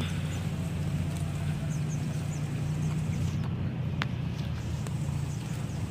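Wind on the phone's microphone, a steady low rumble, with a faint sharp click about four seconds in.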